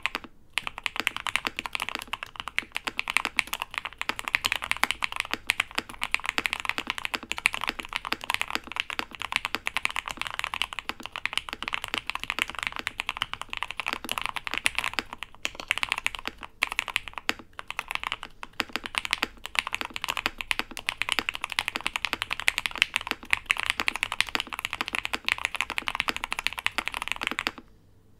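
Fast, continuous typing on a custom mechanical keyboard with lubed, broken-in Hyperglide Cherry MX Black linear switches on an aluminium plate and solder PCB, fully foamed; a dense clack of keystrokes with a poppy edge. The typing stops just before the end.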